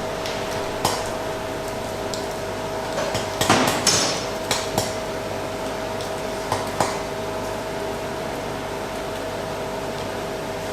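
Hammer blows on a hot iron arrowhead being forged: a handful of irregular metallic strikes, bunched about three and a half to five seconds in, then two more near seven seconds, over a steady hum.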